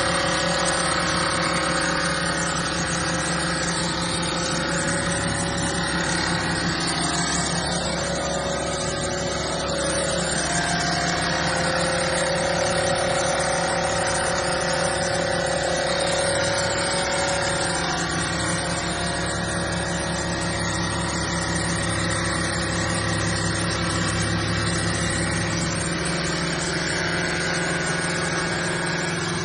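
Water-cooled diamond blade of a CNC bridge saw cutting a granite slab: a steady motor hum under the continuous grinding hiss of the cut.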